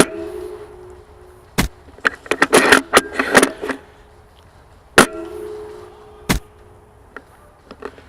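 Spring-powered VSR-10 airsoft sniper rifle firing twice, about five seconds apart; each shot is a sharp crack followed by a brief ringing twang of the spring. Between the shots come single clicks and a quick run of clicks and rattles.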